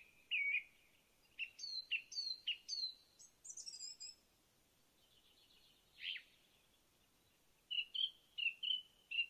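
Birds chirping: phrases of short, high chirps and whistles, with a quieter stretch in the middle broken by one sweeping call.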